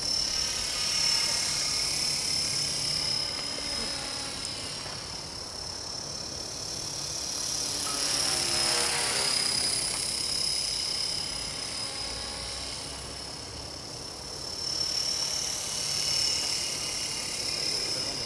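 KDS 450 electric radio-controlled helicopter in flight: a steady high-pitched whine from its motor and spinning rotors, growing louder about halfway through as it passes closer and again a few seconds before the end.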